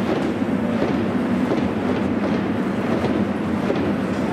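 Steady stadium background noise, a dense even rumble with wind on the microphone.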